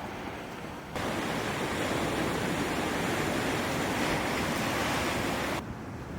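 Ocean surf washing up on a beach, a steady rush of waves. It turns suddenly louder about a second in and drops back just as suddenly shortly before the end.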